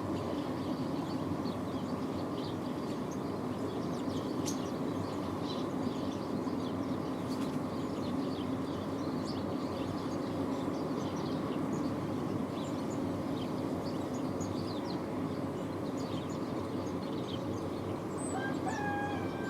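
Freight train running past with a steady rumble, while small birds chirp. Near the end a held tone begins that dips in pitch as it stops.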